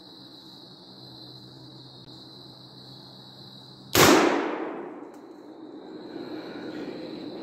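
A single 12-gauge slug shot from a G-Force GF00 tactical shotgun about four seconds in: one sharp, very loud report that rings out and dies away over about a second. A softer noise swells up afterwards.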